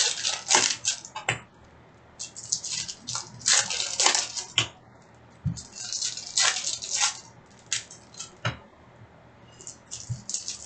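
Hockey card packs being opened and handled: crisp crinkling and tearing of pack wrappers and cards rustling, in quick bursts with short pauses, one of them about one and a half seconds in.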